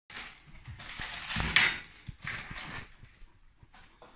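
Plastic wrapping rustling and crinkling as it is handled and pulled off a box, in uneven bursts, the loudest about a second and a half in.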